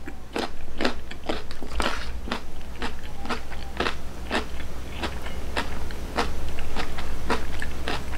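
Close-up crunching of a raw carrot stick being chewed, in crisp strokes about two a second.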